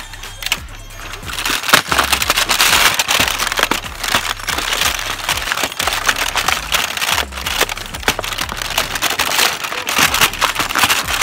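Crackling of a cardboard Maltesers advent calendar as a hand presses and picks at its doors, with many irregular clicks from about a second and a half in, over background music.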